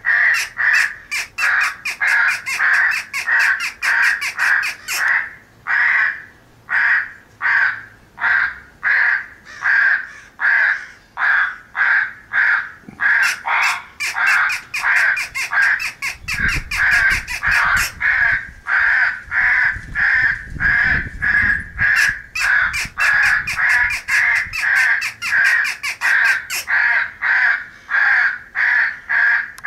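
A flock of crows cawing continuously in quick, overlapping runs of harsh caws, the clamour of corvids gathering to feed. A low rumble sits under the calls for several seconds in the middle.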